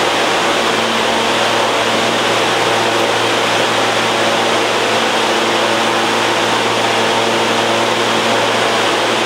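Steady hum and rushing air of a stationary R160-series subway train's air conditioning and onboard equipment, its doors open, a few steady low tones under an even hiss.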